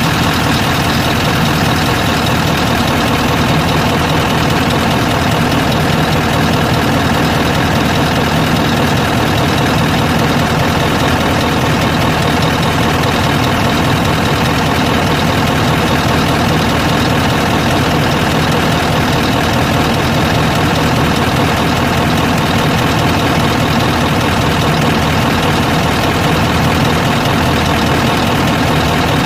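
Scania R580's DC16 V8 diesel engine idling steadily, heard up close in the open engine bay.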